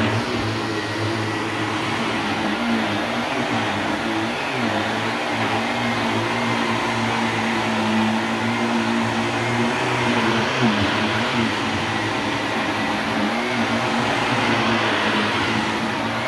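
Shark Navigator Lift-Away Deluxe upright vacuum cleaner running steadily while vacuuming a rug, its motor hum wavering slightly in pitch.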